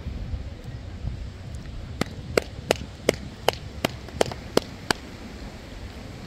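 A run of nine sharp, evenly spaced cracks, about three a second, starting about two seconds in and stopping about five seconds in, over low wind rumble on the microphone.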